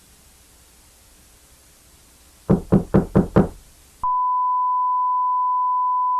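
Faint static hiss, then five quick knocks on a door, about four or five a second. The hiss then cuts off abruptly and a loud, steady single-pitch beep tone takes over and holds.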